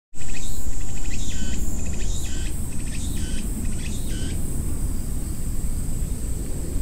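Outdoor summer ambience: insects droning in a steady high-pitched whine. A short repeated call comes about once a second for the first four seconds, over a low rumble of wind on the microphone.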